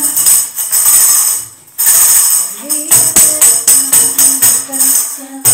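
Tambourine jingling in time with a sung Christian worship song. The music drops out for a moment about a second and a half in, then comes back with even tambourine strokes about four a second.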